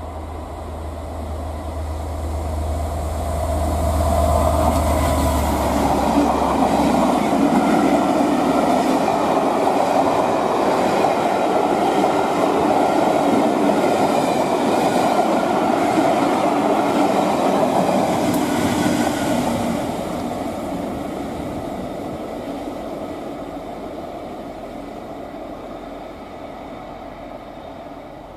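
Class 67 diesel locomotive and its train of Pullman coaches passing close by. The locomotive's low engine drone comes up first, then the coaches' wheels rumble and clatter over the rails for about fifteen seconds, and the sound fades as the train draws away.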